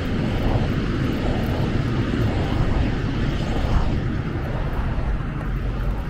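Wind blowing across the microphone, a steady low rumble with a faint hiss above it.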